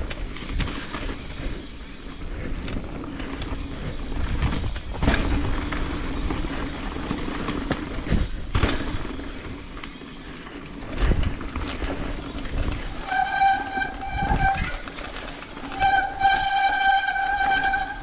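Mountain bike rolling over a dirt trail, with knocks and rattles from the bike over bumps. Twice in the last third the brakes squeal with a high steady tone for a second or two; the rider says soon after that his brakes are messed up.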